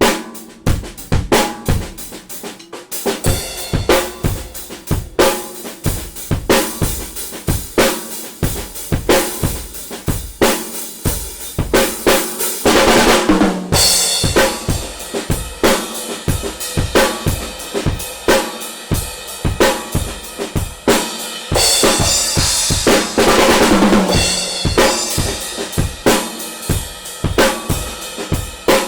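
Mapex Storm drum kit with poplar shells, played in a steady groove: rapid bass drum, snare and hi-hat strokes, with two longer cymbal washes, one a little before the middle and one about three quarters of the way through.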